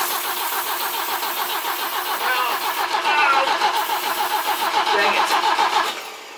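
BMW E21 320i's four-cylinder engine being cranked on the starter motor, turning over in a fast even rhythm without catching, until the cranking stops about six seconds in. The plug leads have just been switched round on the distributor to cure backfiring through the intake; the car now fires out of the exhaust but won't start.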